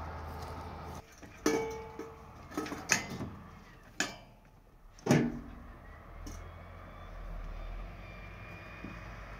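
Several sharp metallic knocks and clanks, the loudest about five seconds in, from a man climbing onto and stepping about the steel cargo bed of a pickup truck. A low steady hum fills the first second.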